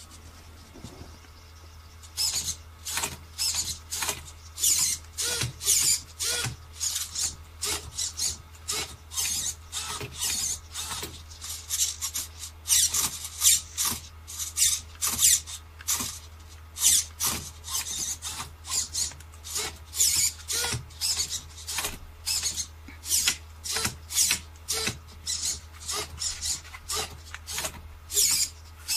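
Servo motors in a 3D-printed robotic hand whirring in short, rapid bursts, one or two a second, as its fingers follow a control glove's movements, starting about two seconds in. A low steady hum runs underneath.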